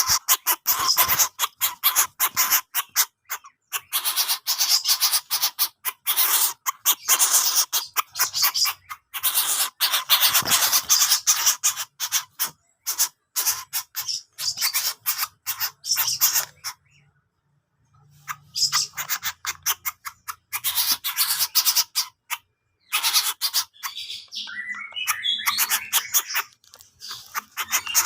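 Coucal giving harsh, rasping calls in long runs of rapid stuttering pulses, broken by a couple of short pauses, with a few brief gliding notes near the end.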